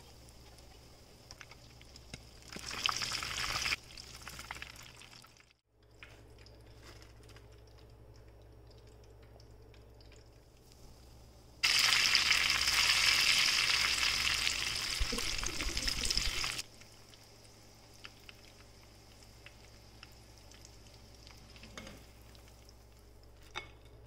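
Hot oil sizzling as breadcrumb-coated stuffed mushrooms fry, heard in two stretches: a short one about three seconds in and a louder one of about five seconds from roughly halfway, each starting and stopping abruptly. A faint low hum sits underneath.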